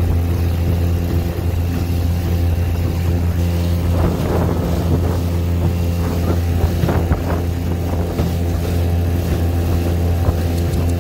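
Outboard motor pushing an aluminium jon boat, running at a steady, unchanging speed. Water slaps the hull a few times between about four and eight seconds in.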